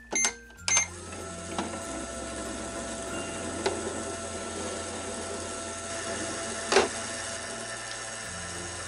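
Toy microwave switched on with a couple of clicks and short beeps, then running with a steady whirring hum broken by a few single clicks.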